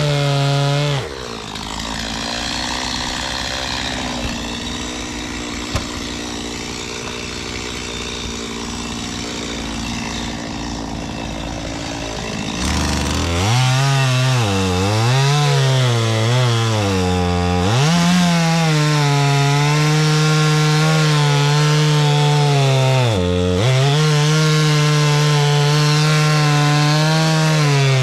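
Two-stroke chainsaw cutting wood. It runs at high speed, drops to idle about a second in, and is revved up again near the middle, its pitch swooping up and down several times before it holds at full speed, with one brief dip near the end.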